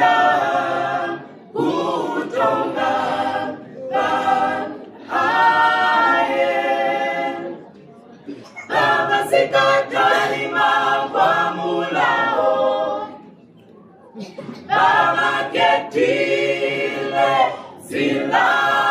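A small mixed group of men and women singing unaccompanied, in sung phrases broken by short breaths, with a longer pause about two-thirds of the way through.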